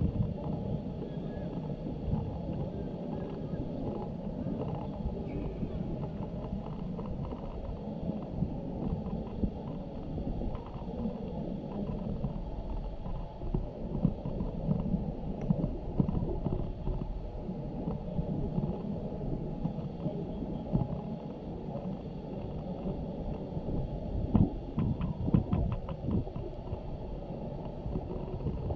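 Muffled outdoor rumble on the microphone with indistinct, distant shouting from rugby players on the pitch, a few louder sharp sounds near the end.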